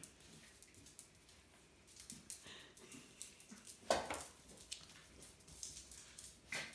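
A cat and a puppy scuffling and wrestling on a mat, with soft scrabbling and patter of paws and claws, and one short loud sound about four seconds in as the cat pins the puppy.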